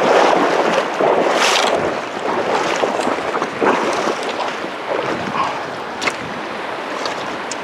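River water rushing, loudest over the first two seconds and then steadier.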